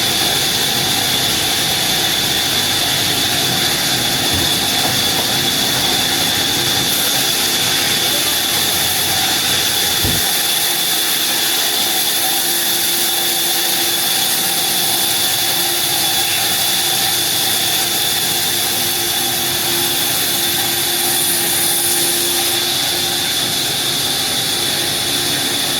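Sawmill saw machinery running steadily: a loud, even hiss with a constant high whine.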